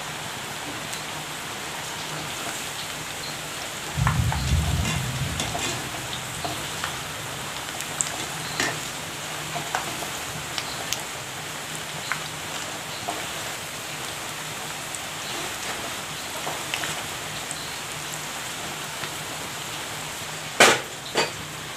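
Semolina vadas deep-frying in hot oil in a kadai, a steady sizzle with small crackles. A wire skimmer clinks and knocks against the pan now and then, with a low thump about four seconds in and two sharp knocks near the end.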